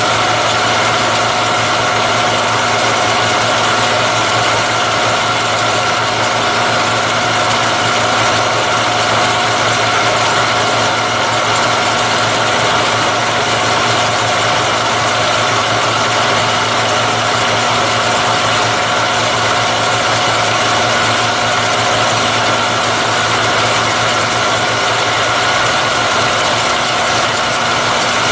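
Vertical milling machine running, its end mill cutting down the face of a cam timing gear clamped on a rotary table. Steady hum with a few held tones over a constant hiss, unchanging throughout.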